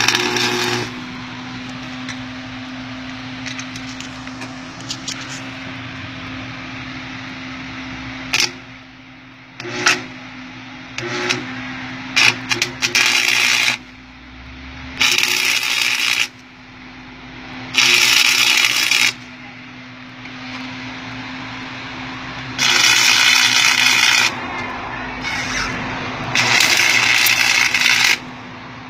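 Arc welding with a stick electrode on the Chevy C2's steel bumper support brackets: the arc crackles and sizzles in about nine short runs of one to two seconds each, with pauses between them. A steady low hum runs underneath throughout.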